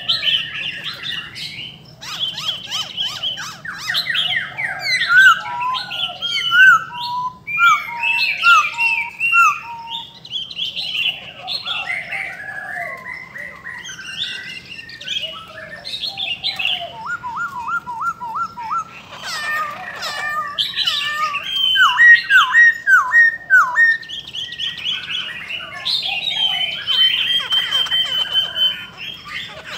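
Caged laughingthrushes singing and calling over one another: loud, varied whistled phrases, sweeping notes and harsh squawks, with runs of quick repeated notes about halfway through and again a few seconds later.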